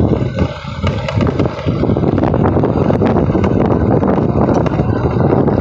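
Road vehicle running, with wind buffeting the microphone in a steady low rumble.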